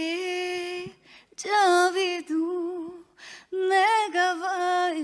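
A woman singing unaccompanied, a capella, in short held phrases with pauses for breath between them. It is her raw voice without auto-tune.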